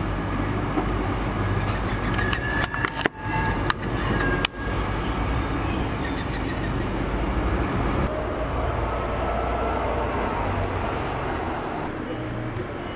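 Steady street traffic rumble. A run of sharp clicks and knocks a few seconds in, as a vacuum-packed salmon pack is pulled out through a vending machine's pickup flap.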